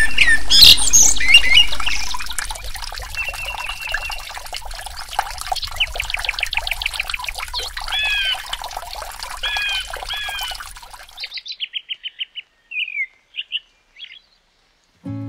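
Several songbirds singing and chirping together over a low background hum. About eleven seconds in, the hum and most of the chorus stop, leaving a few separate chirps before silence.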